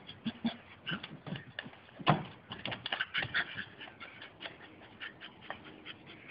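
Staffordshire bull terrier making short play noises as it pushes a football around, with many quick knocks and scuffs and one louder knock about two seconds in.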